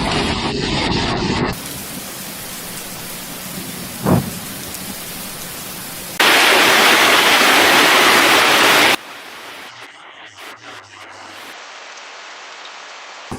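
Storm and floodwater noise: a steady hiss that changes abruptly several times as the footage is cut together. It is loudest for a few seconds in the middle, and there is a single thump about four seconds in.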